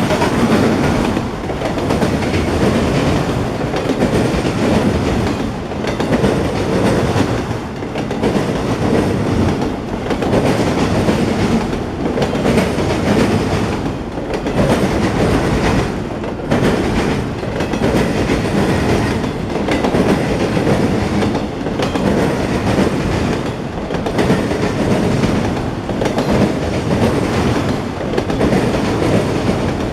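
Freight train of autorack cars rolling past, the wheels clicking over rail joints in a steady clickety-clack. The noise dips briefly about every two seconds as each long car goes by.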